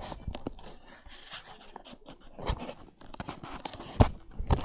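Handling noise: irregular knocks, clicks and rustling as plastic toys and the recording phone are moved about close to the microphone, with a loud thump about four seconds in and another just after.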